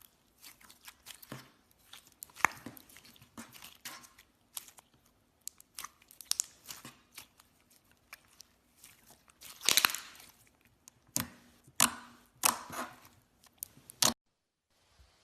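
Clear slime being squished and stretched by hand, giving a run of sticky clicks and crackling pops. The crackling is loudest about ten seconds in and again around twelve seconds, then cuts off suddenly near the end.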